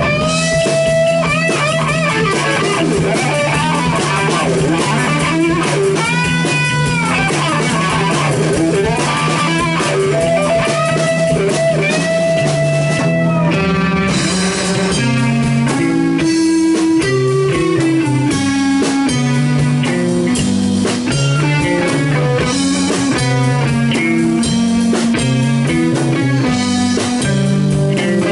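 Blues-rock band playing live: electric guitar, bass guitar and drum kit in an instrumental passage. In the first half the guitar holds long notes that bend up and down; about halfway through it switches to a choppier riff over a moving bass line.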